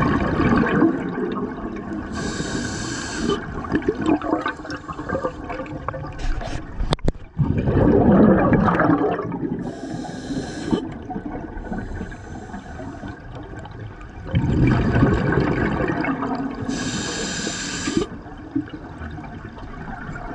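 Scuba diver breathing through a regulator underwater: short hissing inhalations alternate with louder, rumbling bursts of exhaled bubbles, several breaths in a row.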